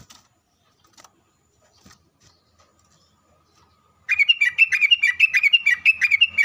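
Sooty-headed bulbul song: a fast, unbroken run of bubbly chirps that starts about four seconds in, after near quiet broken by a few faint clicks.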